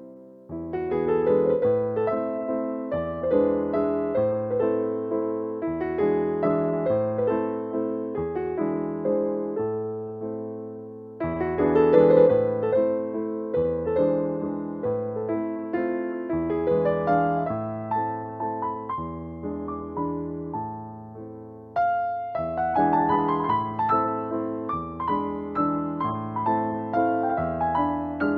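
Background music: a gentle piano piece with bass notes, in phrases that restart after brief dips about a second in, around eleven seconds in and around twenty-two seconds in.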